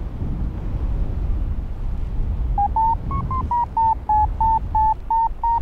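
Paragliding variometer beeping in short, rapid tones, about three or four a second, from about halfway in, the sign of the glider climbing in a thermal. Wind rushes on the microphone throughout.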